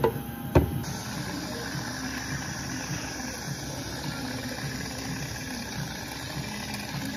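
A hard knock about half a second in, then an aerosol whipped-cream can hissing steadily as it sprays cream onto a drink.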